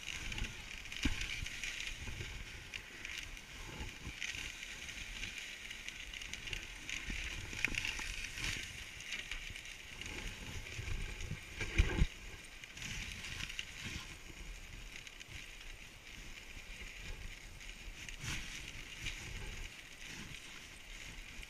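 Dog sled runners hissing and scraping steadily over snow as the husky team pulls the sled along, with scattered knocks as the sled jolts over bumps, the loudest about twelve seconds in.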